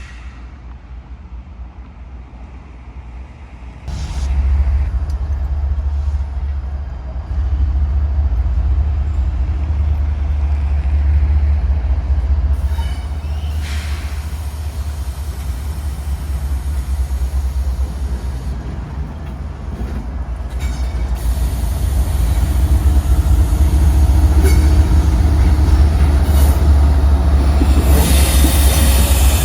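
A train passing close by: a steady low rumble that jumps up about four seconds in and grows louder toward the end, with a few short higher-pitched clanks and squeaks along the way.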